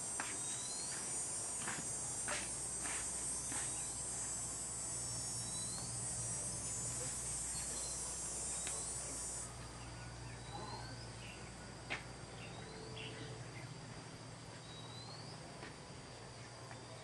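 A high, steady insect buzz that cuts off suddenly about halfway through. Short, high upward chirps repeat every couple of seconds, with a few scattered clicks.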